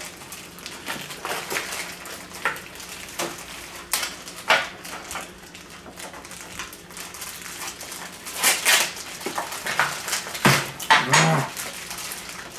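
Plastic toy packaging and a cardboard box being handled and opened: crinkling wrappers, rustling and small clicks of plastic parts, with a louder stretch of crinkling about two thirds of the way in and a short low-pitched sound near the end.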